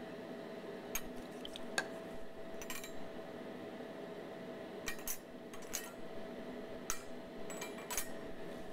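Glass test tubes clinking and tapping against a wire test-tube rack as they are handled, a dozen or so light, irregular clicks. A steady room hum runs underneath.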